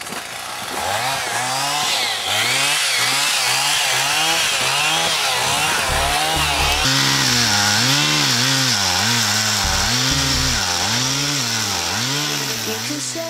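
Chainsaw engine running under load as it cuts into a tree, its pitch rising and falling over and over as the saw works through the wood.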